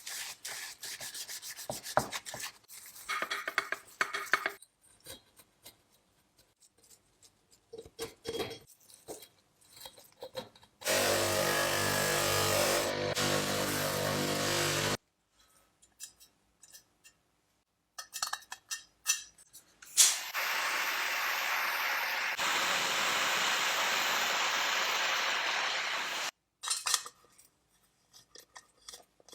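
Workshop tool sounds during a repair: scattered clicks and scraping, then a small power tool running steadily for about four seconds, and later a longer steady rasping hiss lasting about six seconds.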